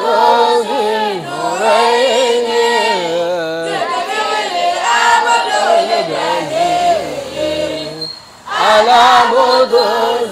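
Voices chanting an Arabic funeral lament in long, drawn-out melismatic notes. There is a short break just before eight seconds in, then the chanting comes back louder.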